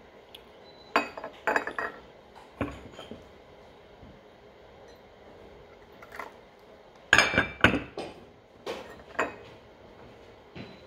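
Irregular clinks and taps of small hard objects being handled on a tabletop, such as makeup containers, brushes and cups. They come in several short clusters, the loudest about seven seconds in.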